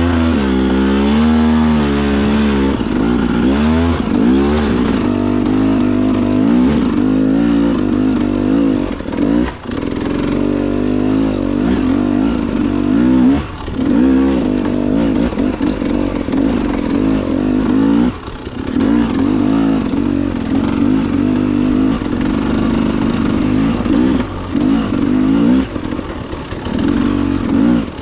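KTM dirt bike engine under constantly changing throttle while riding rough single track, its pitch rising and falling. The throttle closes briefly several times, a third of the way in, around halfway and near the end.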